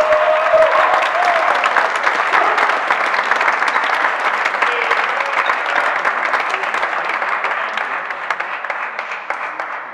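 Audience applauding after a point in a badminton match, with a voice calling out in the first second or so; the clapping fades gradually and has died down by the end.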